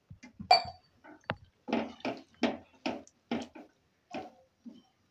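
Wooden spatula stirring a watery mixture of chopped eggplant in an aluminium pressure-cooker pot, with a knock against the pot about half a second in and then a steady run of wet stirring strokes, about two a second.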